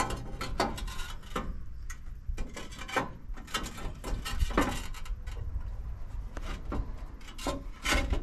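Roof tiles being fitted by hand: the tiles scrape and knock against each other as one is slid and pushed into place, in an irregular string of short clicks and scrapes.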